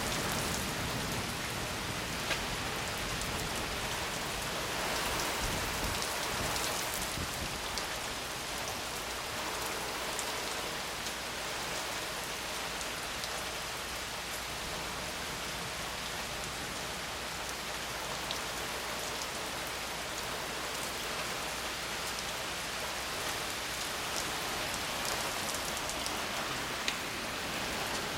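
Steady rain falling in a thunderstorm, with scattered drops ticking on a nearby surface.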